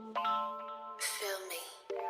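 Background music: sustained synthesizer chords that change every half second or so, with a brief swishing noise about a second in.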